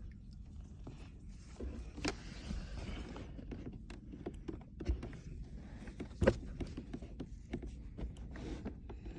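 Plastic center-console parts and wiring connectors being handled: scattered clicks, knocks and rustles, with sharp knocks about two and six seconds in, over a low steady rumble.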